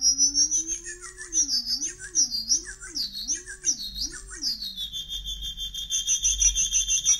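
Homemade Arduino synth (an ATmega328 chip running the Mozzi sound library) playing through its audio amplifier module, its electronic tone swept by hand on the potentiometer knobs. It glides upward, then warbles up and down about five times, then settles into a steady high tone near the end.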